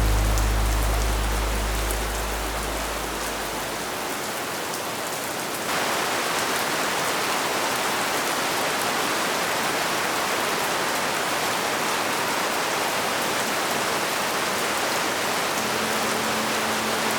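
Steady rain falling, an even hiss that gets louder about six seconds in. The tail of background music fades out at the start, and faint music comes back near the end.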